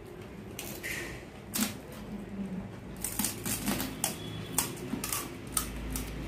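Crisp hollow pani puri shells being poked and cracked open with fingers and crunched while eating, a string of short, sharp, irregular cracks and clicks.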